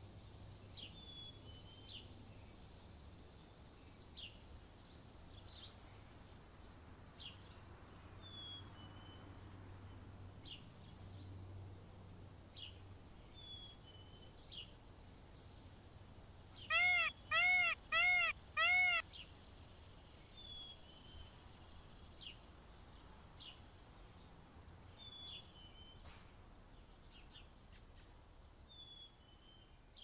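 Indian peafowl (blue peacock) giving four loud, short calls in quick succession, each rising and falling in pitch, about halfway through. Small birds chirp faintly throughout with short high notes every second or two.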